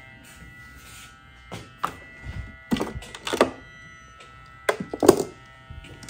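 A few scattered thunks and clicks of handling on a Sea-Doo's plastic body panels, over a faint steady hum.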